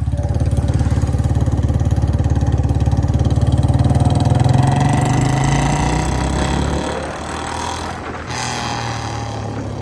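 Royal Enfield 350 J-series single-cylinder engine thumping through a free-flow short-bottle silencer, riding steadily in first gear at low speed. It swells for the first half, then eases off, with a brief dip a little after eight seconds.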